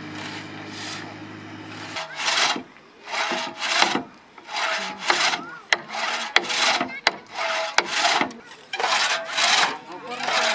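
Long two-man pit saw ripping a hardwood log lengthwise, with repeated rasping strokes about one every half-second to second and a few sharp knocks between them. For the first two seconds a vehicle engine hums steadily before the sawing starts.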